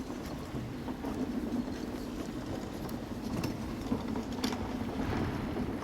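Library reading-room ambience: a steady low rumble of room tone with scattered light taps and clicks, the clearest about three and a half and four and a half seconds in.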